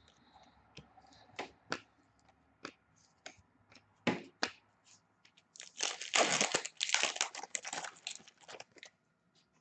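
Cards being handled, with scattered light clicks and taps, then an Upper Deck hockey card foil pack torn open and crinkled for about three seconds.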